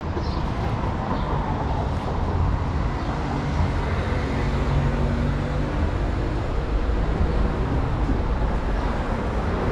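Steady city street traffic noise, a continuous low rumble of road vehicles.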